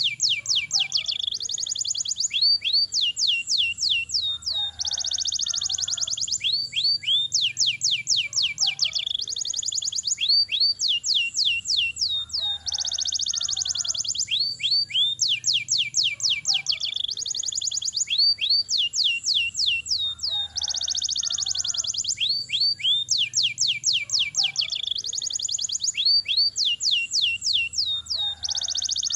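Domestic canary singing a long unbroken song of rapid high trills and rolls. The same run of phrases comes round again about every seven to eight seconds.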